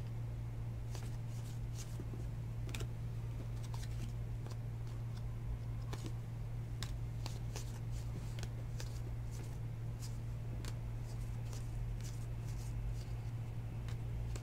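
A stack of glossy trading cards being flipped through by hand, making a string of light, irregular clicks and slides as each card is pulled off the stack. A steady low electrical hum sits underneath.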